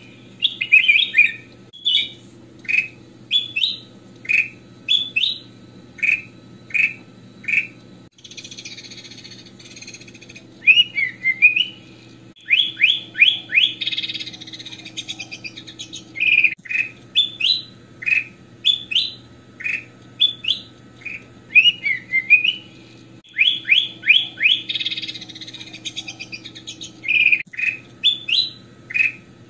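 Ruby-throated bulbul (kutilang emas) singing: a run of short, clear whistled phrases of rising and falling notes, about one a second, broken three times by longer harsh, scratchy chattering passages. A faint steady hum runs underneath.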